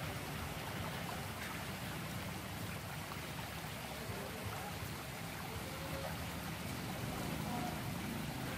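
Water from a small ornamental rock waterfall splashing steadily into a pool.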